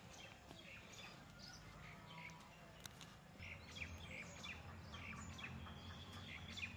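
Faint outdoor ambience with scattered small bird chirps, joined by a low steady hum about halfway through.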